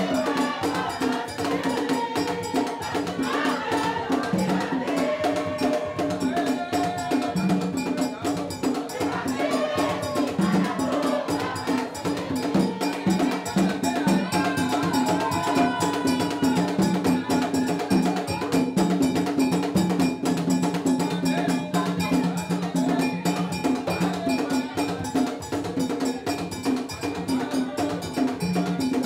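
Haitian Vodou ceremonial music: drums and a struck metal bell keep a steady, fast rhythm while a group of people sing over it.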